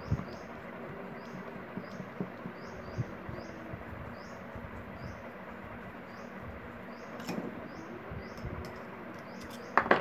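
Small clicks and taps of hands handling a table fan motor's wires and casing, over a steady hiss and short high chirps that repeat about once a second. Near the end, a quick cluster of louder metallic clicks as a tubular box spanner is fitted onto a nut on the motor's end cover.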